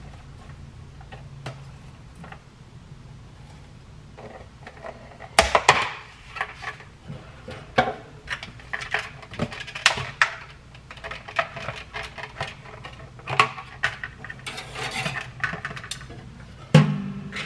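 Metal kitchen tongs, a plastic clamshell salad container and a glass bowl clicking and clattering as they are handled, in a busy run of sharp knocks, with a toaster oven door shutting with a thud near the end.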